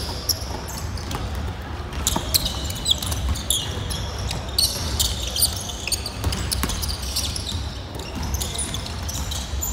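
Basketball play on a wooden gym floor: the ball bouncing and being caught, with irregular knocks and sneakers squeaking on the court.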